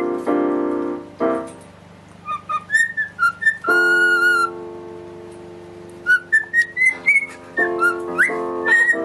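A cockatiel whistling short, gliding chirps along with a piano being played. Piano chords sound at the start, a chord about four seconds in rings on under a longer whistle, and more chords come near the end.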